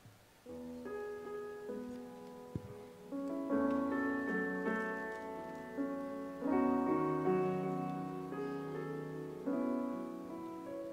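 Keyboard playing slow, held chords as the introduction to a hymn. It starts about half a second in, with the chords changing every one to three seconds.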